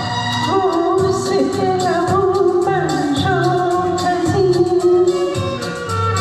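A singer performing a song with instrumental accompaniment and a steady beat.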